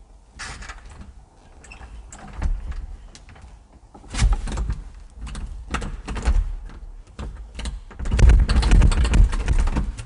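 Wooden door and its round metal knob rattling and clicking in the frame as the door is held shut by the knob, with heavier thuds about four seconds in and a longer stretch of loud thumping near the end.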